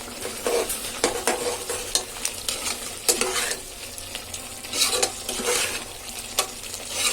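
A ladle stirring and scraping a thick masala of potato, brinjal, tomato paste and spices frying in oil inside a pressure cooker. Irregular scrapes come every second or so over a steady sizzle.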